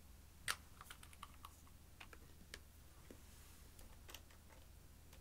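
Light clicks and taps of plastic makeup bottles being handled. The loudest is a sharp click about half a second in, followed by a scattered run of softer clicks.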